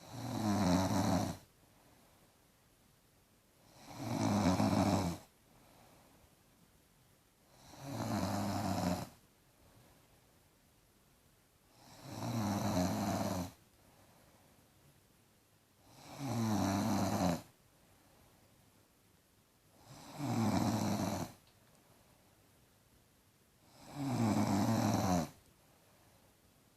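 A girl snoring loudly in her sleep: a long, rasping snore about every four seconds, seven in all, with quiet between them.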